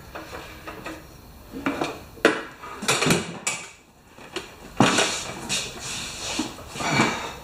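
Knocks, clunks and scraping of a walk-behind lawn mower being handled and tipped back upright on a wooden cart, its deck and wheels bumping the board. The knocks come irregularly, the sharpest about two and three seconds in and again near the end.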